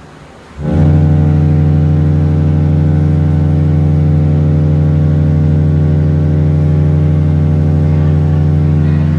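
A cruise ship's horn sounds one long, deep, steady blast. It starts abruptly about half a second in and is still sounding at the end.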